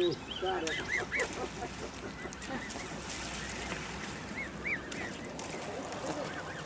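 Canada goose goslings peeping rapidly in short high notes as they jump from a concrete wall into the water with small splashes, and an adult goose gives low calls at the start.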